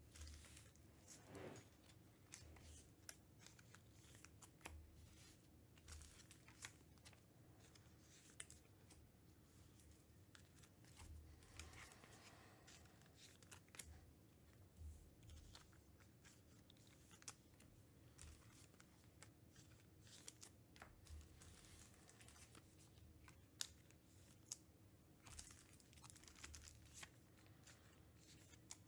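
Near silence: room tone with faint, scattered clicks and brief rustles.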